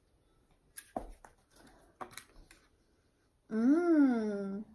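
A few faint clicks and rustles of small items being handled, then a woman's drawn-out appreciative 'mmm' near the end, rising and then falling in pitch, as she sniffs a scented wax bar.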